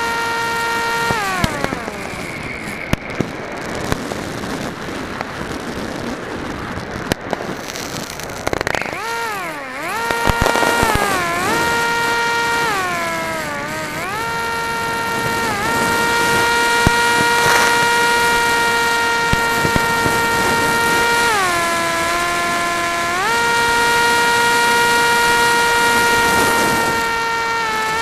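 RC flying wing's propeller motor heard through its onboard camera: a steady high whine that cuts out about a second in, leaving wind rush and a few sharp pops. About eight seconds in the whine returns, and its pitch dips and recovers several times as the throttle is eased back and opened again.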